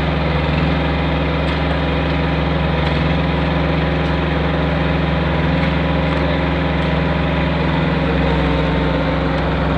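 Engine of a curb-stone pulling machine running steadily at an even speed.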